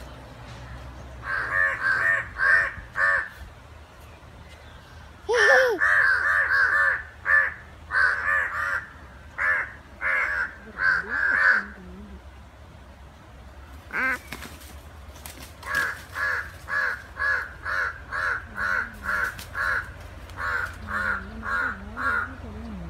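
Crows cawing during a fight: three bouts of harsh, repeated caws, about two a second, each bout lasting several seconds.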